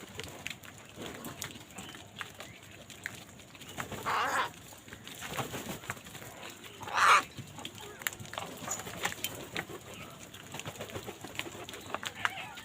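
Crow cawing: two harsh caws, one about a third of the way in and a louder one just past the middle, over scattered faint chirps and clicks.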